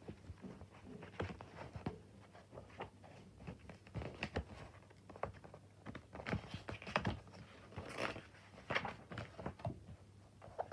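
Paperback colouring books being handled, giving scattered soft knocks and paper rustling at irregular moments, busier in the second half.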